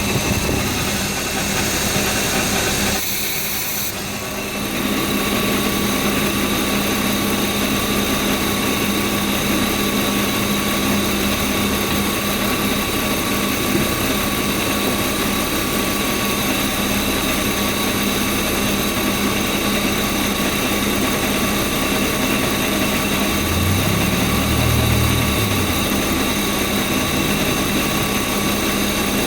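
BMW E36 328i's straight-six engine idling steadily, heard up close while it is checked for vacuum leaks. The sound dulls briefly about three seconds in.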